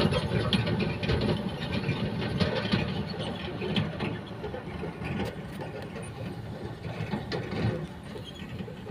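Dump truck's diesel engine running as the truck drives off along a dirt road, with rapid clattering from the truck, the whole sound fading as it moves away.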